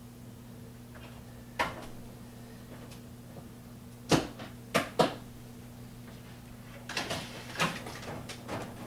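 Several sharp knocks and clatters of things being handled and set down: one about a second and a half in, three close together around the middle, and a looser run near the end, over a steady low hum.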